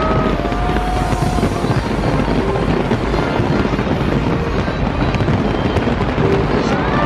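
Dense fireworks barrage at full intensity: many shells bursting together in a continuous crackle of bangs, with music underneath.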